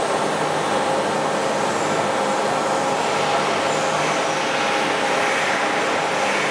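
Scharmann Heavycut 4.2 ram-type floor boring and milling machine running as its ram traverses outward, a steady mechanical hum with several held tones over an even noise.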